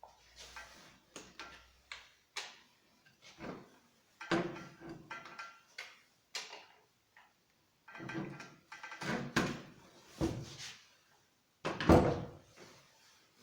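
Irregular knocks, scrapes and rustles of objects being handled, with short pauses between them.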